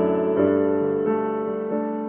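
Electric piano or keyboard playing slow sustained chords, changing chord about twice and letting each ring and fade.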